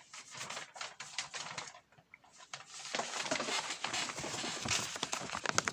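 Irregular clicking and rustling close to the microphone, with a short lull about two seconds in and busier clicking after it.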